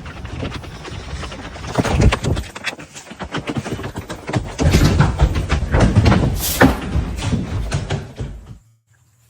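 A hooked channel catfish thrashing: a busy run of knocks, thuds and clatter, loudest about two seconds in and again in the middle, that cuts off suddenly near the end.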